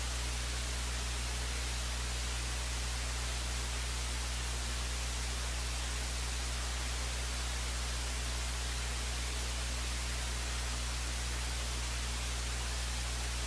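Steady low electrical hum under an even hiss, unchanging throughout, with no other sound: noise on an otherwise dead audio feed.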